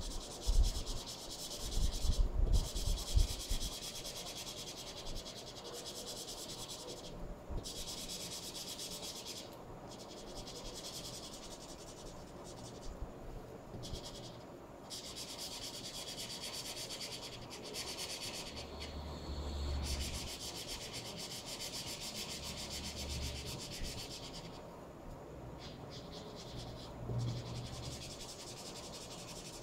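Felt-tip highlighter marker rubbing back and forth across paper in quick shading strokes, a dry scratchy hiss that stops briefly each time the tip lifts. A few low bumps on the table come about two to three seconds in.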